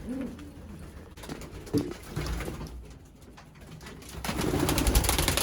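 Racing pigeons cooing softly in the loft, a few low calls. Near the end a louder rustling noise takes over.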